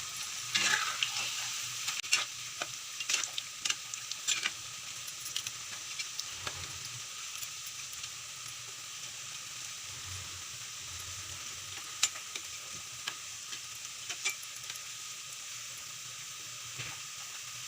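Spinach pakoras (gram-flour fritters) deep-frying in hot oil: a steady sizzle with scattered sharp pops and crackles, busier in the first few seconds after they are turned over, with a louder pop about twelve seconds in.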